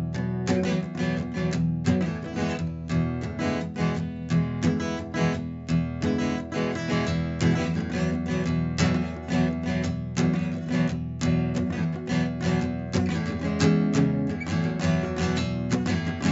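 Acoustic guitar instrumental music, strummed and picked in a quick, steady rhythm.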